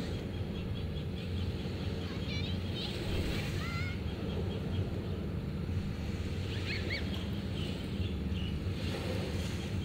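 Steady low rush of wind and surf, with scattered bird chirps and a few short whistled calls.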